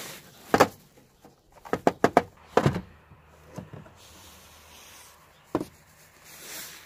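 Hard plastic clacks and clicks of a BMW F31 wagon's outer tail-light unit being worked loose and pulled from its mounting clips. Several knocks come close together at first, then a single sharp click later on.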